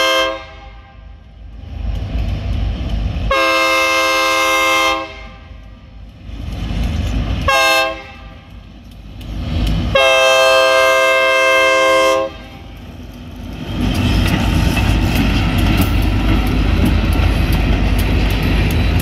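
EMD SD40 freight locomotive's air horn sounding the grade-crossing signal: the end of a long blast, then a second long blast, a short one and a final long one. After that the two SD40 locomotives pass close by, their diesel engines and wheels on the rails making a loud, steady, deep rumble.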